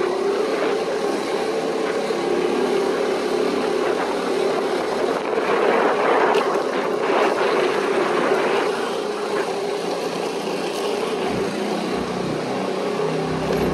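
Motorcycle or scooter engine running steadily while riding along a street, a continuous drone over road and wind noise.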